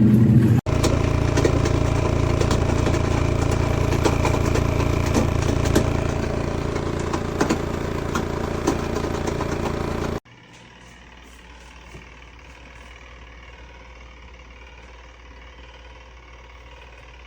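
ROVSUN twin-tub portable washing machine running: a steady motor hum with light rattling and clicking. About ten seconds in it cuts abruptly to a much quieter low hum.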